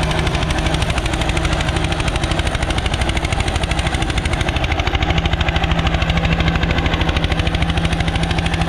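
Eicher 241 tractor's single-cylinder diesel engine chugging in a rapid, even beat as it pulls an eight-tyne cultivator through tilled soil under load.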